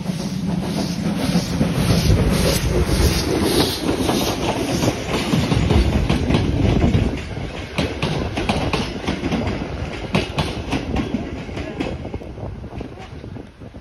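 Pt47 steam locomotive working out of a station: its exhaust beats come at a steady rhythm over a heavy rumble as it passes. From about halfway on, the passenger carriages roll by with their wheels clicking over the rail joints, and the sound fades toward the end.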